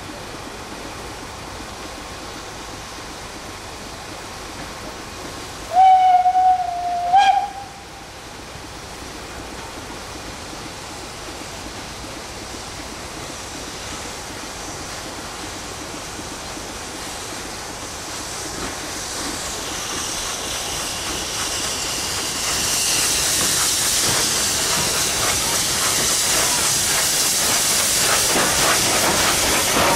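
A steam locomotive's whistle blows once, loud and steady for about a second and a half, about six seconds in. Then LMS Class 3F 'Jinty' tank engine No. 47406 runs into the platform with its train, steam hissing, growing louder over the last ten seconds.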